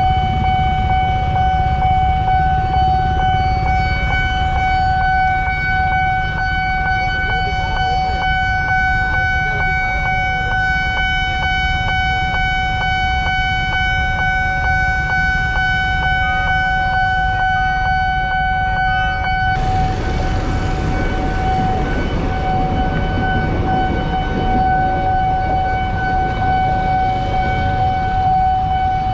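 Railway level-crossing warning alarm sounding one continuous electronic tone with overtones, over the low rumble of idling motorbikes and cars. Faint regular clicks run under it for the first two-thirds. After that a louder hiss of traffic noise takes over.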